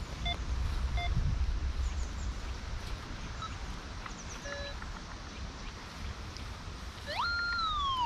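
Metal detector sounding target tones: two short beeps in the first second, another short tone midway, then near the end a louder tone that rises, holds and slides down in pitch as the coil passes over a buried metal target.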